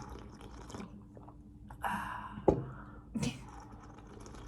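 Quiet breakfast-table sounds: eating and handling of tableware, with a sharp knock about two and a half seconds in, over a low steady hum.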